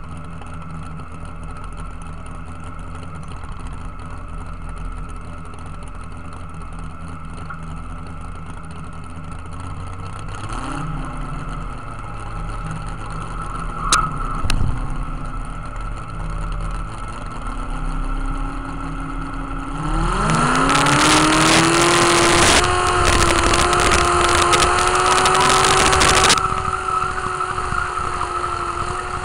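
Classic modified pulling tractor engine, heard from on board beside its vertical exhaust stack, idling steadily at the starting line. About two-thirds of the way in it revs up sharply and holds high revs under load as the pull gets under way, with a loud rushing noise over it for about six seconds. Near the end the revs drop back somewhat while it keeps running hard.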